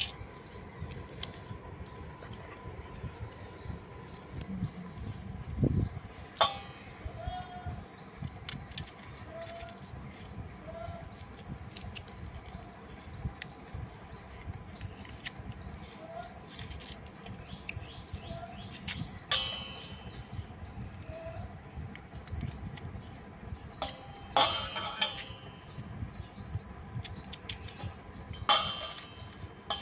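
A small knife scraping the seeds and pith out of slit bitter gourds, with soft scrapes and clicks throughout. A few sharper clinks of the knife against the stainless steel bowl come about 19, 24 and 29 seconds in.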